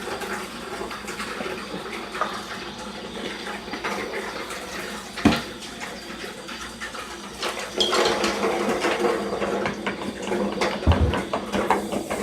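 Water running and splashing, with scattered clicks and knocks of handled dishes. There is one sharp knock about five seconds in, and the sound grows busier and louder from about eight seconds in.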